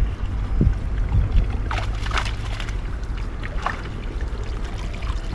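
Shallow pond water splashing and sloshing as a fishing net is hauled up by hand, in a few irregular splashes, with wind rumbling on the microphone.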